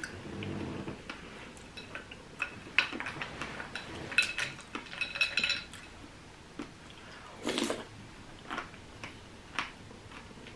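A spoon clinking and scraping in a bowl of berries, ice and coconut water: scattered sharp clinks, a few of them ringing briefly, most of them in the middle few seconds.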